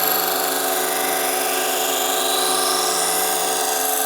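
Electric knife-sharpening machine running steadily, a high grinding hiss over the motor's hum.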